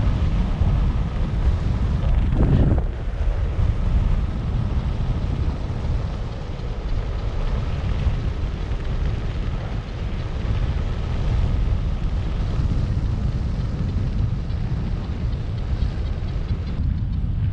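Steady wind noise from the airflow of paraglider flight buffeting the riser-mounted camera's microphone, mostly low in pitch, with a brief louder gust about two and a half seconds in.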